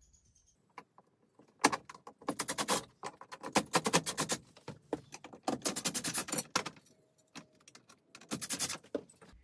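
Cordless drill/driver running in reverse in four short bursts, backing out the square-head screws of a loose RV grab bar; each burst is a rapid run of clicks.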